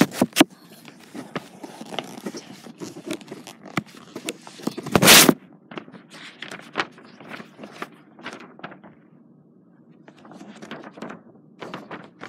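Irregular clicks, knocks and rustling of handling, with two sharp knocks at the start and a loud rushing scrape about five seconds in.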